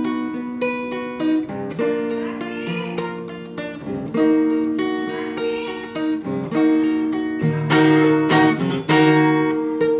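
Acoustic guitar strumming chords, the chord changing every second or so.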